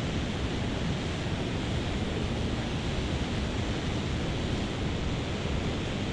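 Steady rushing roar of a large waterfall.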